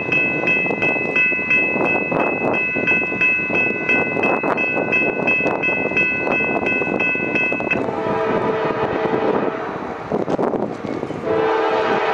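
A grade-crossing bell rings steadily in even, repeated strokes. About eight seconds in, the approaching freight locomotive sounds its horn: one long blast, a short break, then another blast starting near the end.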